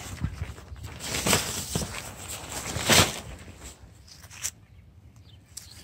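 Tent fabric rustling as it is handled and pulled aside, in irregular bursts, the loudest about three seconds in, followed by one short click.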